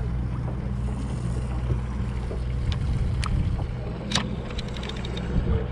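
Boat engine running with a steady low hum. Over it come a few sharp clicks, the loudest about four seconds in, from a conventional fishing reel being handled.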